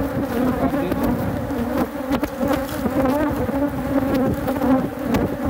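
Loud, steady buzzing of a large number of honey bees swirling around an opened hive, a colony the beekeeper calls aggressive, with a few light knocks as frames are handled.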